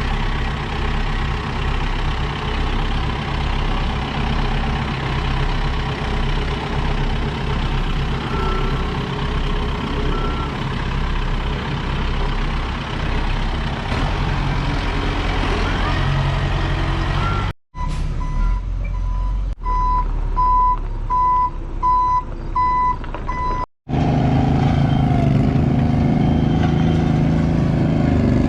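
Heavy equipment engine running steadily. For several seconds past the middle, a backup alarm beeps about twice a second as the machine reverses.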